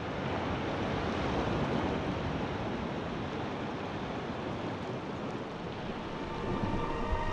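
Ocean surf: waves washing in as a steady rush of water, swelling over the first couple of seconds and then holding level.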